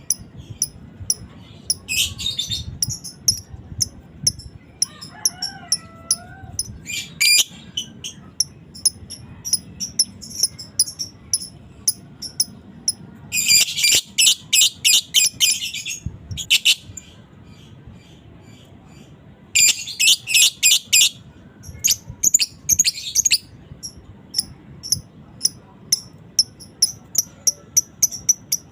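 Fighter lovebird singing: a steady string of sharp, high chirps. It breaks twice, about halfway through and again near two-thirds, into a couple of seconds of fast continuous chattering, the 'ngekek' trill.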